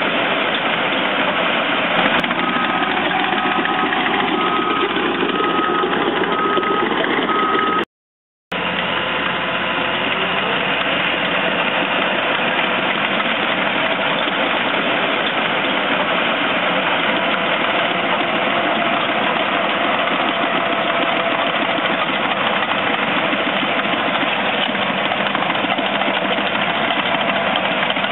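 Caterpillar D6K crawler dozer's diesel engine running steadily as it works and pushes soil. From about two to eight seconds in, a backup alarm beeps at one pitch, about one and a half beeps a second, and the sound cuts out for half a second just after.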